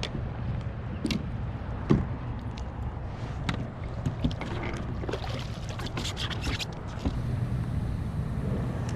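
Knocks, taps and scrapes of a fish and gear being handled on a plastic fishing kayak, scattered at first, then a busy cluster of clicks and rustling from about five to seven seconds in, over a steady low rumble of water and wind.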